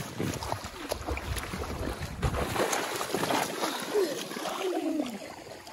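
Water splashing and sloshing from a child's swimming strokes in shallow sea water close to the microphone, with wind noise on the microphone and faint voices in the background.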